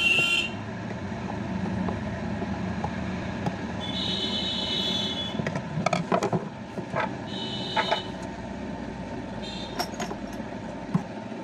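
Light clicks and taps of a screwdriver undoing small screws in a Bluetooth speaker's plastic casing, over a steady background rumble. Two brief high-pitched tones come about four and seven seconds in.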